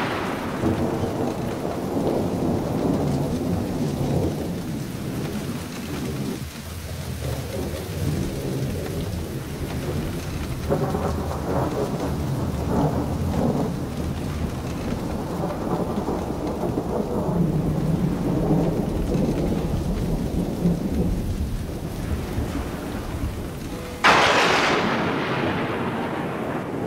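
Storm sound effect: rain with rolling thunder, and a sudden loud thunderclap about 24 seconds in that fades away.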